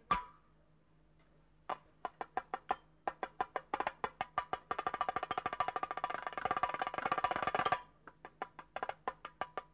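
Percussion music under title cards: after a brief quiet spell, quick sharp taps start about two seconds in, speed up into a dense roll for about three seconds, then thin out to scattered taps again.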